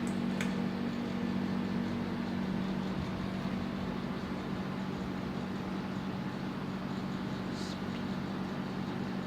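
Uchida four-bladed ceiling fan running at its low speed: a steady low hum under an even airy hiss. A faint click comes just after the start, and a short hiss about three-quarters of the way through.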